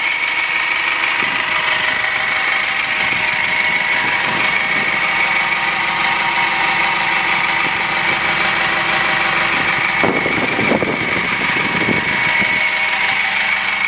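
Diesel engine of a GAZelle Next van idling steadily, heard from beneath the vehicle, with a steady high whine over it. About ten seconds in there are a couple of seconds of rougher noise.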